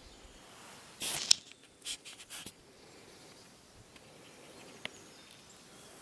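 Brief scraping and rustling noises from the person filming moving over stony ground, with a sharp click about a second in and a few shorter scrapes just after. A fainter click comes near five seconds, over a faint outdoor background.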